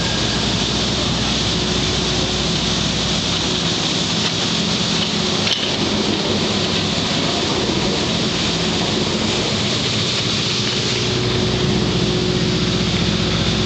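Bombardier Flexity Outlook tram running past close by: a steady rushing rumble with a low hum underneath.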